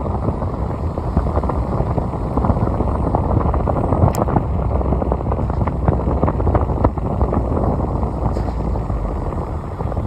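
Car driving, heard as a steady low rumble of road and engine noise with many small knocks and rattles, and one sharper click about four seconds in.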